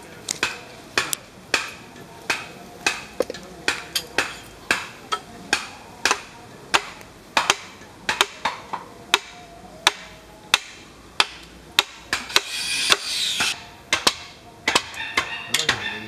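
Hammer blows driving a chisel into a wooden block, a steady run of sharp knocks at about two a second. A brief hiss comes in about twelve seconds in.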